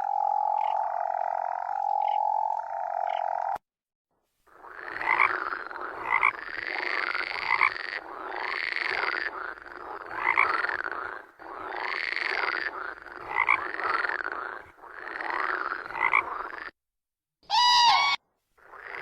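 Frogs calling, in several recordings cut together. First comes a steady pitched call for about three and a half seconds. After a short gap there is a run of repeated croaks, each rising and falling in pitch, about one a second, and a brief high call near the end.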